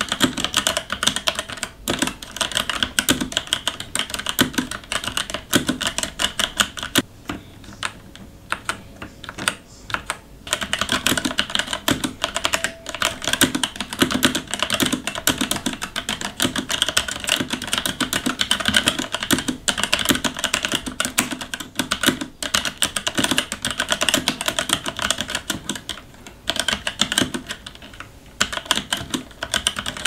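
Typing on a Motospeed GK82 wireless mechanical keyboard with red linear switches: a dense, continuous clatter of keystrokes, with a couple of brief lulls.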